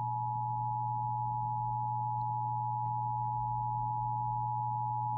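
Emergency Alert System attention signal: a steady, unbroken two-note alarm tone held at one pitch over a low steady hum, marking the start of a relayed alert before the voice message.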